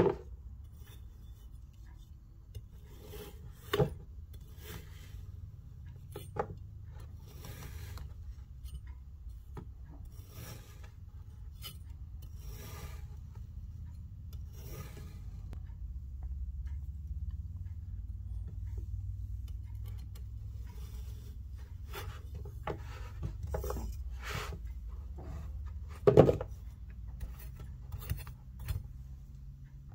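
Kinetic sand being sliced and scraped with a serrated knife: repeated soft, gritty crunching and rasping strokes. A few sharp knocks of the blade come through, the loudest near the end.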